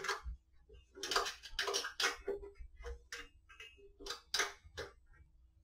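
Allen key clicking and scraping in the bolt heads of a metal bracket as the bolts are tightened against square nuts: a string of irregular metal ticks in two clusters.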